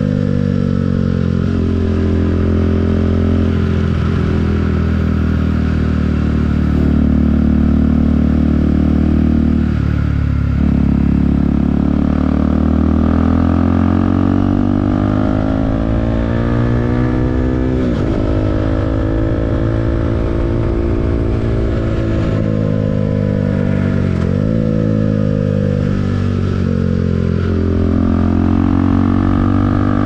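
A KTM RC 390's single-cylinder engine running under way, its revs slowly rising and easing. There are a few quick drops and recoveries in pitch, about ten, eighteen and twenty-four seconds in.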